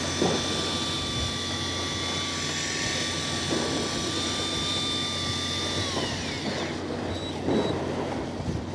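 A motor's steady high whine, which slides down in pitch and stops about six seconds in, over the low steady hum of the fishing boat's engine.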